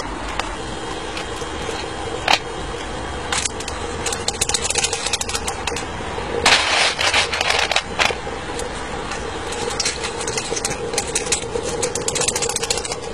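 Electric draught fan whirring steadily as it draws the charcoal fire in a miniature steam locomotive's firebox. Metallic clinks and scraping come from a tool working the burning charcoal, starting a few seconds in and densest around the middle.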